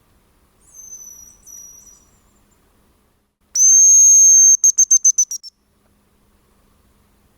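Hazel grouse decoy whistle blown close by: a loud, long, high, steady whistle that breaks into a quick run of about six short, slightly falling notes, imitating the hazel grouse's song. About a second in, there is a fainter, shorter high whistle from farther off.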